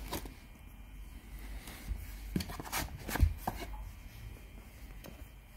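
Handling and opening a smartphone's retail box: scattered taps, knocks and rubs of the box and its packaging, a cluster of sharper knocks a little past halfway.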